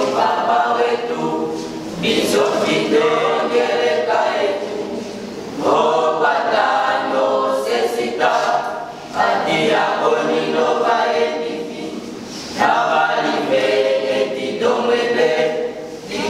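Mixed choir of boys' and girls' voices singing a cappella, in phrases of about three to four seconds with brief dips between them.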